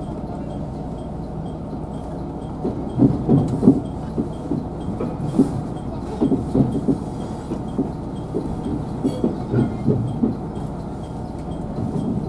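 Train wheels knocking over switch points and crossings, in irregular clusters about three, six and nine seconds in, over the steady running rumble of a KiHa 187 diesel railcar.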